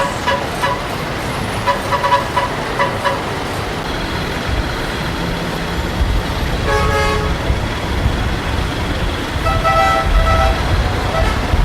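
Busy road traffic: engines running under a steady rumble, with a few short horn toots in the first three seconds, a horn blast about seven seconds in, and another longer honk near the end.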